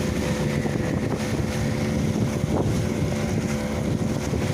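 A boat's motor running steadily with an even hum, with wind buffeting the microphone.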